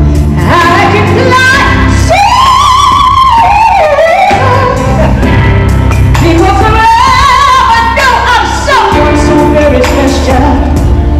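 A woman singing a love ballad over a backing track, with two long, wavering held notes.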